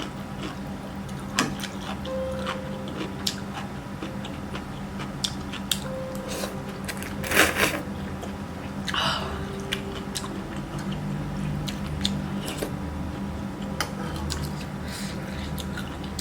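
Close-miked eating sounds: chewing and biting with crisp clicks and crunches throughout, and one louder noisy burst about seven seconds in. Soft background music with held notes plays underneath.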